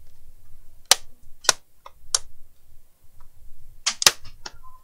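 Plastic case clips of an Acer laptop snapping loose as the case halves are pried apart: a series of sharp plastic snaps, about four in the first half and a quicker cluster of four near the end.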